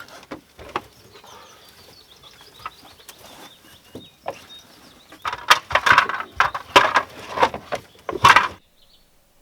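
Birds calling and clucking, with faint high chirps at first and then a run of loud, repeated calls from about five seconds in that cuts off abruptly near the end.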